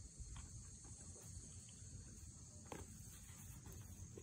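Faint outdoor ambience: crickets droning steadily at a high pitch over a low rumble, with two soft knocks.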